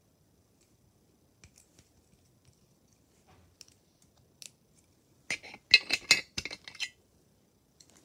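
Small hard plastic pieces handled and snapped together: a few faint clicks, then a quick run of sharp clicks and clatters about five to seven seconds in.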